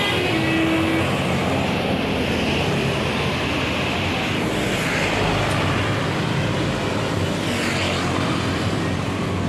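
Road traffic going by close at hand: engine and tyre noise of vehicles, swelling as one passes about halfway through and again near the end.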